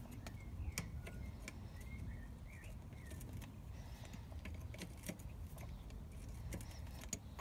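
Faint, scattered metallic clicks of a socket and ratchet turning out a cylinder head bolt on a two-stroke scooter engine. Faint bird chirps sound in the background.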